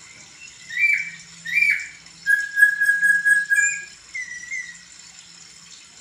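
Laughingthrush (poksay) singing: two quick rising whistles, then a long steady whistled note lasting about a second and a half, followed by a few softer notes.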